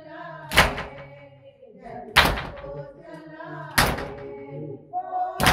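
Matam chest-beating: loud hand strikes on the chest in a slow, even beat, one about every 1.6 seconds, four in all. Between the strikes a voice chants a nauha lament.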